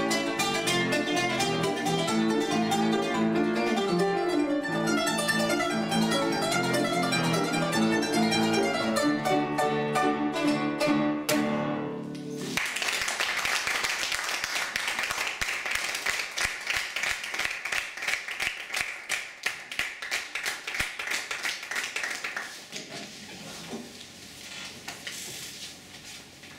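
Kanun and piano playing the last bars of a piece, the plucked kanun notes over piano chords, ending about halfway through. Applause follows for about ten seconds, then dies away.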